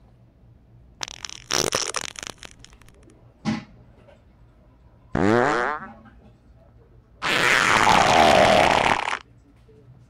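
A series of separate fart sounds with short pauses between them. The first, about a second in, is crackling and sputtering; a short one follows near three and a half seconds; a brief pitched one rises a little after five seconds; and a long, breathy, noisy one lasts about two seconds near the end.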